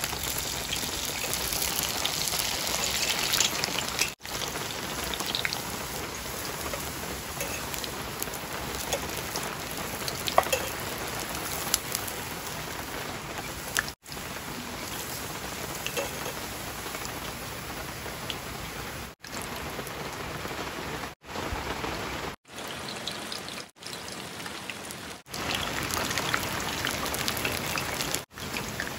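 Thin cassava wafer deep-frying in a pot of hot oil: a dense, steady crackling sizzle of bubbling oil, briefly broken off several times.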